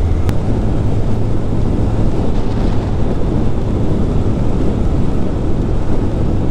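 Steady rushing wind on a motorcycle rider's microphone at expressway speed, with engine and road noise underneath.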